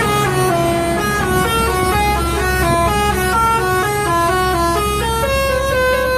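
Bus telolet horn, a multi-trumpet musical air horn, playing a quick run of stepped notes with several tones sounding together, settling into longer held notes near the end, over a steady low hum.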